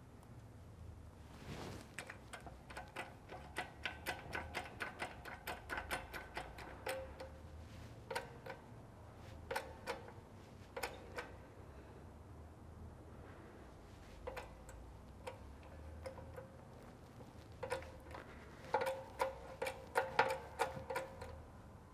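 Shop press pushing a new bearing down onto a Porsche 915 transaxle pinion shaft: runs of sharp metallic ticks, about three or four a second, each with a short ring. They come from about two seconds in to about seven, with scattered single ticks after, and again in a louder run near the end.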